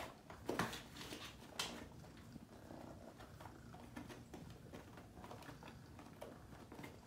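Kittens' paws and claws scrabbling and tapping on a cardboard pizza-box toy: a few sharper scrapes in the first two seconds, then faint, scattered pattering.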